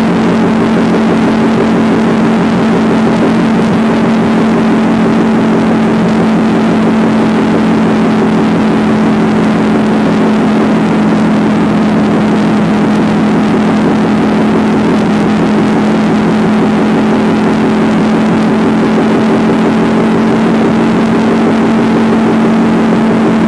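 Motorcycle engine running at an even, unchanging speed while cruising, a steady drone over constant rushing noise.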